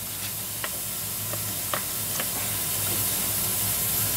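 Steady hiss over a low hum, with a few light clicks as the recoil starter pulley of an Evinrude 15 hp outboard is seated and turned in its housing.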